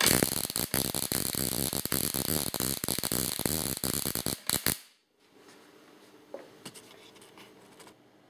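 Ruhmkorff induction coil discharging: a spark arc jumping between a flat hard-disk platter and a brass ball, a rapid crackling buzz of sparks. It ends with a few last snaps and cuts off about five seconds in.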